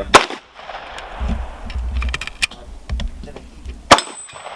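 Two gunshots about four seconds apart, with light clicks of handling between them.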